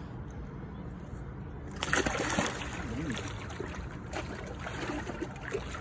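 Paddlefish splashing in shallow water as it is held at the surface by hand: a sudden loud splash about two seconds in, then choppy sloshing and splatter.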